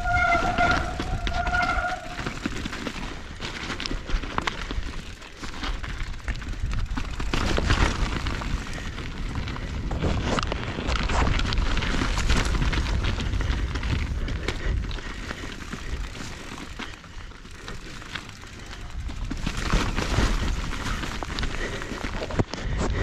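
Mountain bike riding over rough, rocky trail: steady tyre and wind rumble with many small knocks and rattles from the bike. There is a short high two-part squeal in the first couple of seconds.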